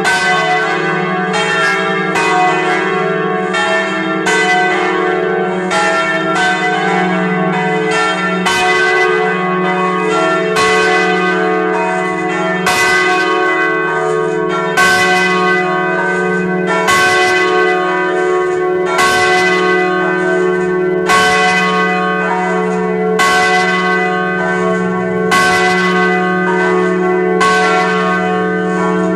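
Several church bells swinging and ringing together in a full peal, their strokes overlapping. A strong stroke comes about every two seconds over a deep, steady hum.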